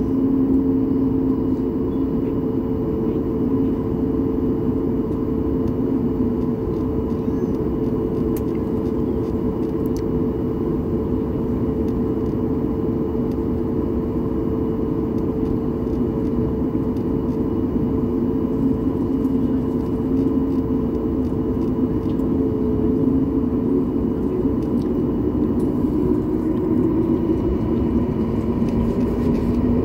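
Jet airliner cabin noise heard at a window seat while taxiing: a steady engine drone with a constant hum and whine. Near the end the engine pitch starts to climb.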